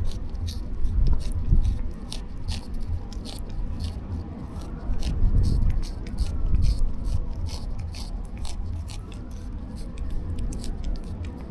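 A cat eating wet cat treats: quick, irregular wet clicks of licking and chewing, several a second, over a low rumble.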